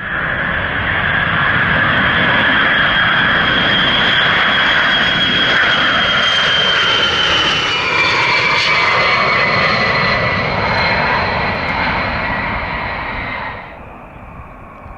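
Boeing WC-135's four TF33 turbofan engines running loudly as the jet passes low on approach, a high whine over the engine noise dropping in pitch as it goes by. The noise cuts off suddenly near the end.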